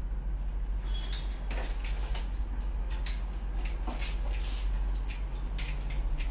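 Hairdressing scissors snipping into the ends of a held section of hair, point-cutting: a string of short, crisp snips at an uneven pace, over a steady low hum.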